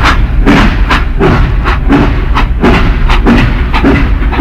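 Rhythmic chugging, about three strokes a second, from the electronic train sound effects of a Caterpillar toy diesel locomotive.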